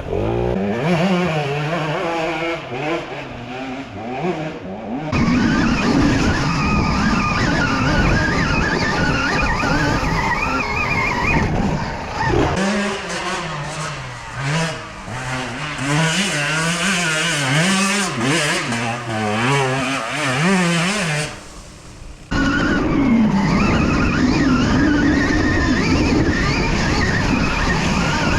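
Off-road motorcycle engine being ridden hard, its note rising and falling again and again as the throttle is worked.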